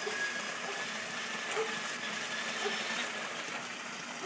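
Steady splashing of a small waterfall pouring into a swimming pool, with a faint steady high whine underneath.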